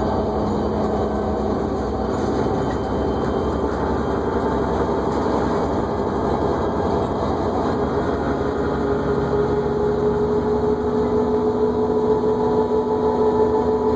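Interior sound of a New Flyer D40LFR diesel city bus under way: steady engine and road noise. A whine comes in about halfway through and grows louder toward the end.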